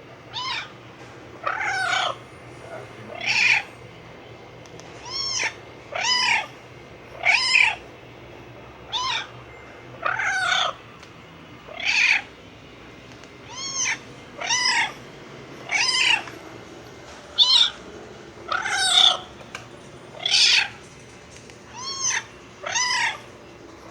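A string of cat meows, about seventeen of them, one every second or so. Each meow arches up and then falls in pitch, and they vary in length and loudness. They are a collection of meow sounds played at a pet cat.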